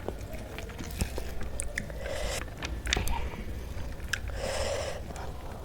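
Close-miked chewing and biting of a person eating, with scattered small mouth clicks.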